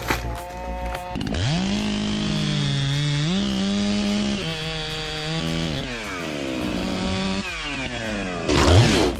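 Large two-stroke chainsaw revving up about a second in and cutting, its pitch dropping under load and rising again several times before winding down. A short loud burst of noise near the end.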